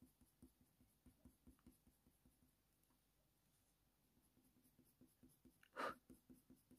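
Very faint, quick short strokes of a Faber-Castell Polychromos colour pencil on smooth hot-press watercolour paper, two or three a second as fur is flicked in. One brief louder sound comes near the end.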